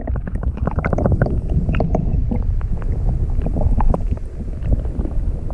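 Water slapping and lapping against the hull of an anchored jet ski in a running current, with wind rumbling on the microphone.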